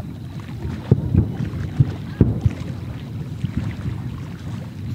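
Fireworks bursting: a run of irregular low booms over a steady rumble.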